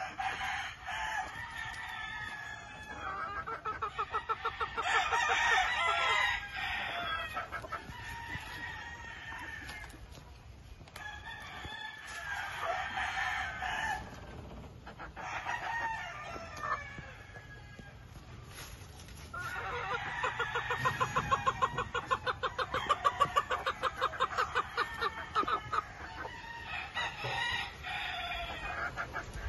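Chickens calling in several long bursts of fast, pulsing clucks and cackles, with quieter gaps between.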